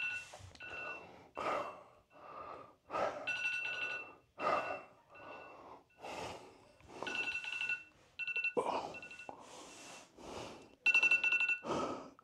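Heavy, gasping breaths after a set of sit-ups, one every second or so. Over them an electronic timer alarm beeps in short repeated runs and stops near the end.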